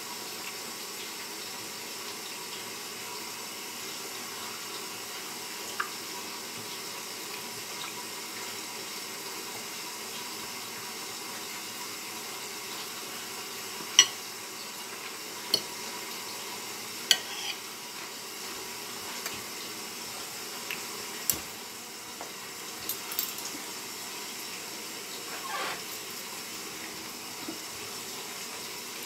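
A steady background hiss, with a scattering of sharp clinks against a ceramic plate from about halfway through as food is taken from it.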